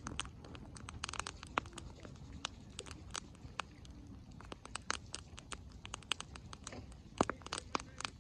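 Wood campfire crackling, with irregular sharp pops of burning logs over a low steady rumble; the loudest pop comes about seven seconds in.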